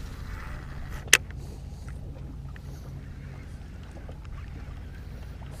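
Steady low hum and rumble aboard an aluminum fishing boat, with one sharp click about a second in.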